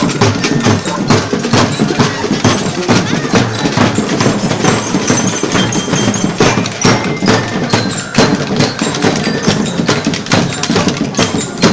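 Parade drum and percussion band playing a rapid, driving beat, with many sharp strikes every second.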